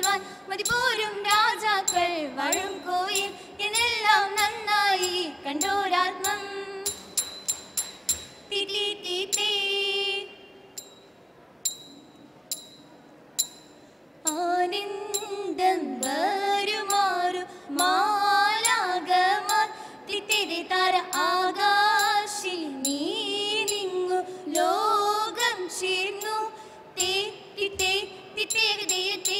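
Women's voices singing a Margam Kali song through microphones, with sharp time-keeping strikes. About ten seconds in the singing stops for a few seconds and only a few sparse strikes are heard, then the song starts again.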